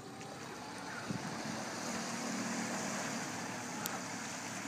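15 hp Honda four-stroke outboard on an aluminium boat pulling away under power. The engine hum grows louder over the first two seconds, under a steady hiss of wake water and wind on the microphone.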